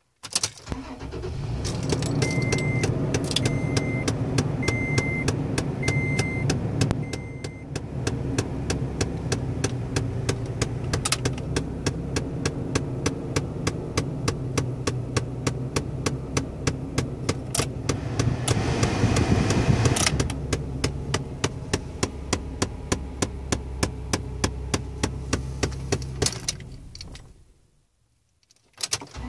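2011 Toyota Tacoma starting and idling, with a chime beeping five times early on and a rapid, regular clicking from the dash at several clicks a second, the mysterious start-up noise. The engine rises louder briefly past the middle and everything cuts off near the end.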